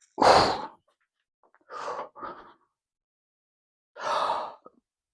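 A man's heavy breathing during a heavy barbell squat set: short forceful breaths and gasps, a loud one just after the start, two close together about two seconds in, and another near the end.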